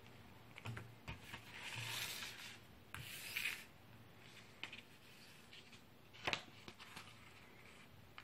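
Hands handling a DVD booklet and its plastic case: paper rubs and slides in two swishes, with a few light clicks and one sharper click about six seconds in as the booklet is laid on the table and opened.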